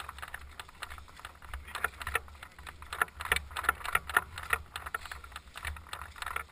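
Electric RC buggy driving over rough grass and dirt, picked up by its onboard action camera: irregular knocks and rattles from the chassis over a steady low hum.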